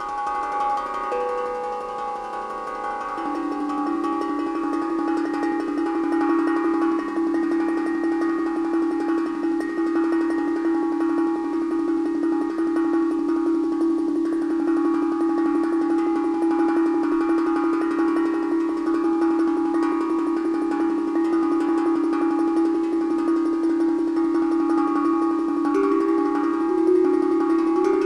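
Steel tongue drum played with wooden mallets in a fast, even roll of strokes. The notes ring and overlap into a sustained, shimmering chord that swells over the first few seconds, then holds steady.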